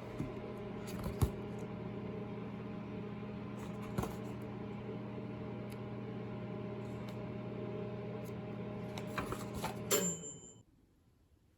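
A household appliance running with a steady electrical hum, with light clicks and taps over it; it stops abruptly about ten seconds in with a brief clatter and a short high tone.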